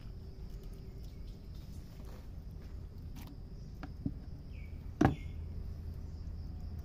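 A steady low rumble with a small click about four seconds in and one sharp knock a second later, as honeycomb is cut with a knife and handled over a plastic bucket.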